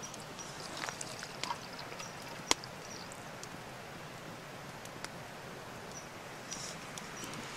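Tea poured from a cast-iron kettle into an enamel mug: a steady light trickle, with a few small sharp clinks, the clearest about two and a half seconds in.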